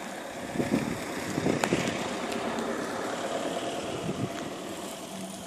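A car driving by on the road, its engine and tyre noise swelling and then easing off.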